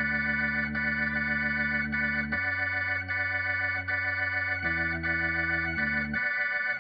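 Hammond organ holding sustained chords, the bass note changing every second or two, with the lowest notes dropping out near the end.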